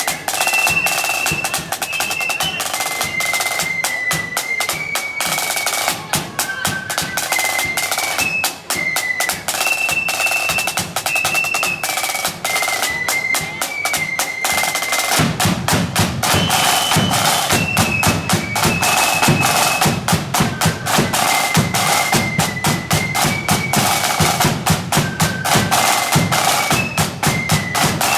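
Marching flute band playing a tune on high flutes over rapid snare drumming; about halfway through, a deep bass drum comes in loudly, beating under the melody.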